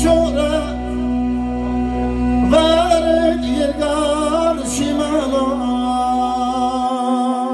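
A man sings a wavering, ornamented melody into a hand-held microphone over backing music with sustained chords and bass. The voice comes in strongly about two and a half seconds in, and the low bass drops out shortly before the end.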